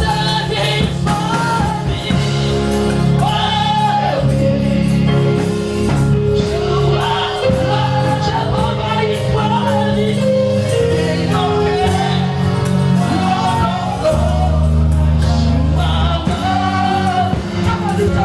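Gospel music with singing voices over steady bass and chords.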